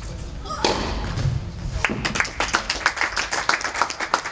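Scattered hand clapping from a small audience in an indoor tennis hall, beginning about two seconds in as irregular sharp claps, several a second, after a single thud near the start.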